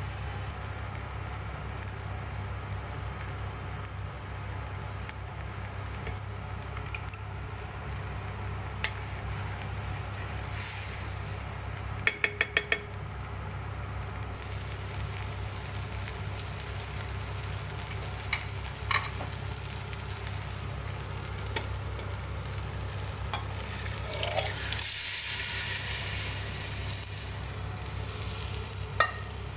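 Rice and shrimp frying in a stainless steel pot, stirred with a wooden spatula: a steady sizzle with scraping and scattered ticks. About 12 seconds in come four quick taps, and near the end the sizzle swells to a louder hiss for about two seconds.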